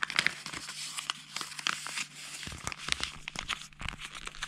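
A sheet of paper rustling and crinkling as hands fold it and press the creases flat, with many small irregular crackles.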